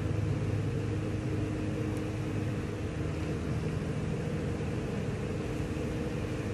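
Many honey bees buzzing around an opened hive in a steady, even hum.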